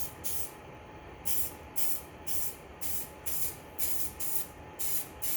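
Aerosol can of clear coat spraying in short hissing bursts, about two a second, as a door handle is coated, with a pause of under a second near the start.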